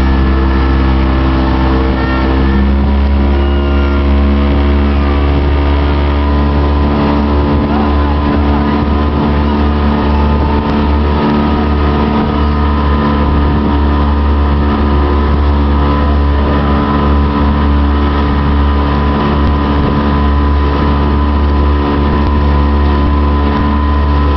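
Motorboat engine running steadily at towing speed, with the rush of the wake behind the boat. The engine note shifts slightly about two seconds in.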